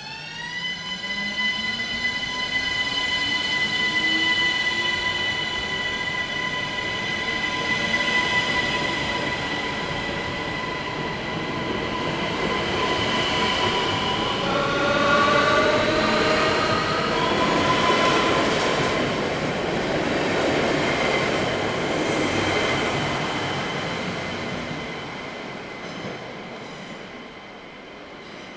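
ÖBB Cityjet (Siemens Desiro ML) electric train pulling out of an underground station. Its traction motors whine, rising in pitch as it accelerates, with a second set of rising tones about halfway through. Then the rumble and wheel noise of the passing cars takes over and fades near the end.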